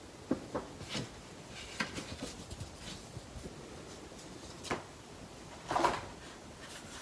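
Packaging being handled by gloved hands: a few light taps and paper rustles, then a louder rustle of cardboard and cloth about six seconds in as the hands reach into the small box holding the webcam in its fabric pouch.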